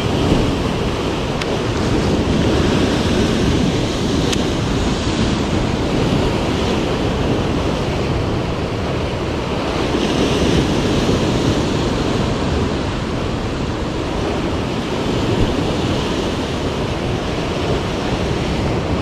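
Sea waves washing against a rocky shore, a steady rush of surf that swells and eases, with wind on the microphone.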